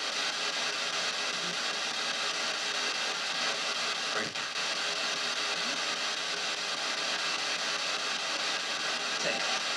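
PSB7 spirit box scanning radio stations, played through stereo speakers: a steady hiss of static with a brief clipped fragment of sound about four seconds in.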